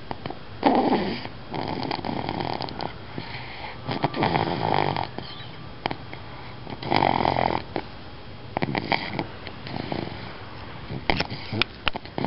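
A baby snoring, a rough snore with each breath every two to three seconds. The loudest snores come in the first half and grow weaker toward the end.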